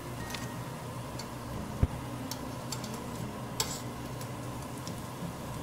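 Battered banana fritters sizzling in hot oil in a wok, with metal tongs clicking against the pan a few times as pieces are lifted out. A dull thump a little under two seconds in is the loudest sound.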